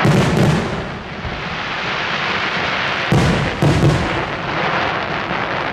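Aerial fireworks shells bursting: a bang right at the start, another just after, then a quick run of three or four bangs about three to four seconds in, with steady crackling from the bursting stars in between.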